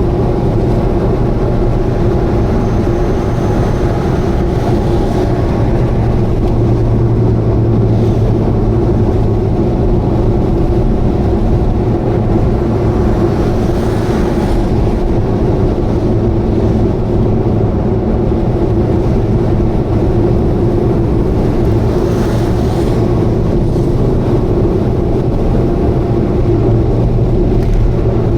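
Subaru Vivio KK3 kei car at expressway speed: a steady engine and exhaust drone mixed with road noise, carrying an abnormal noise that the owner suspects is an exhaust leak. A couple of faint swells come and go partway through.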